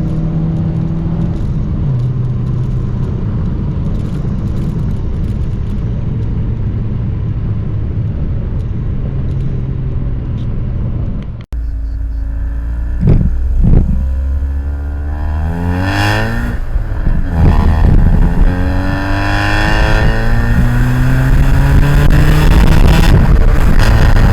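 Honda Civic EG5's four-cylinder engine and aftermarket exhaust with a raspy, farting note: running steadily at first, then, after a sudden cut about halfway, accelerating hard with the pitch climbing, dropping back and climbing again, loudest near the end.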